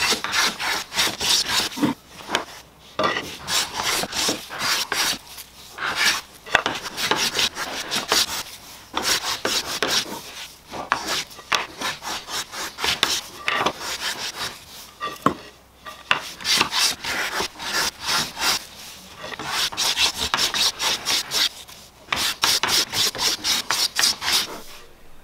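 Vintage Stanley No. 4 smoothing plane pushed in quick, repeated strokes along a board face, each stroke a short scraping hiss as a shaving comes off, in runs broken by brief pauses. The planing smooths away the faint scallops left by a helical-cutter machine planer.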